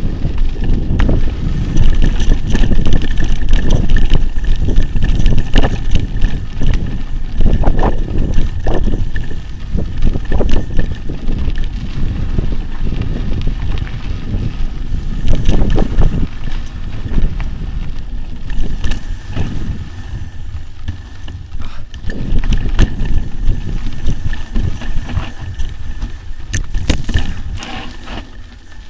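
Mountain bike ridden fast down a dirt singletrack: a loud, steady rumble of wind on the microphone and tyres on dirt, with frequent sharp knocks and rattles from the bike over bumps. It quietens briefly about twenty seconds in.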